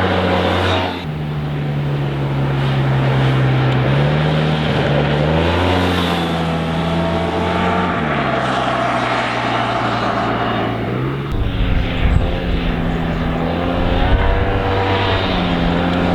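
Yamaha TMAX 530's stock-exhaust parallel-twin engine running, its pitch stepping up and down several times as the revs change. A low rumble comes in about eleven seconds in, with a couple of louder peaks around twelve and fourteen seconds.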